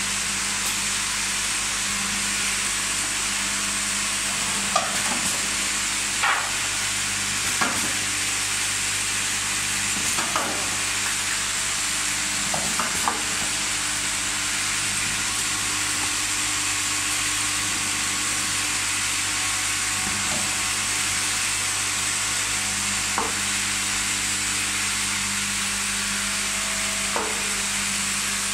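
Cooking-oil filling and capping line running: a steady machine hiss over a low hum from the conveyor and its gear motor, with glass bottles clinking against each other a handful of times at irregular moments.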